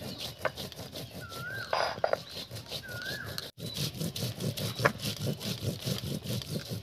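Stone roller grinding cumin seeds on a flat stone slab (shil-nora): rhythmic rubbing and scraping strokes back and forth. A bird gives a short rising-and-falling whistle twice, about one and a half and three seconds in, and the sound drops out briefly just after halfway.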